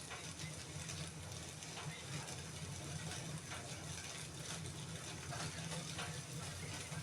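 Wood fire crackling in a fireplace: irregular small pops and snaps over a steady low hum.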